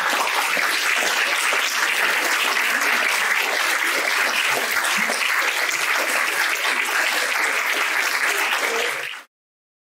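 Audience applauding steadily, a dense wash of many hands clapping, which cuts off suddenly about nine seconds in.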